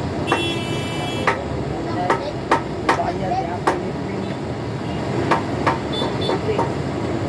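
Hammer strikes, about a dozen sharp knocks at irregular spacing, during a truck radiator tank overhaul, with a brief high squeal lasting about a second near the start.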